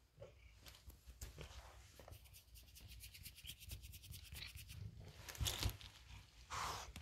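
Faint rubbing and rustling close to the microphone, with a quick run of soft ticks in the middle and a thump about five and a half seconds in.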